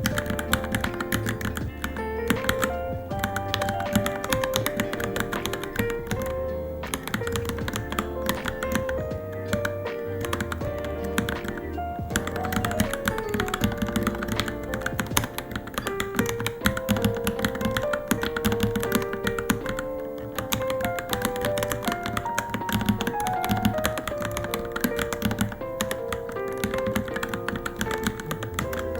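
Rapid, continuous typing on a Varmilo Minilo mechanical keyboard, keys clacking several times a second with brief pauses, over background music.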